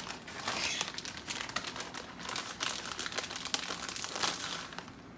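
Plastic packaging crinkling and rustling in the hands, with a dense run of irregular crackles.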